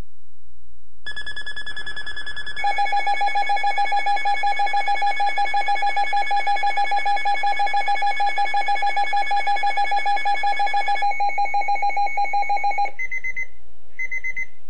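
Weather alert radio alarm tones. A steady high tone starts about a second in and is soon joined by a lower tone that pulses rapidly, about five times a second. Both cut off near the end, followed by two short high beeps.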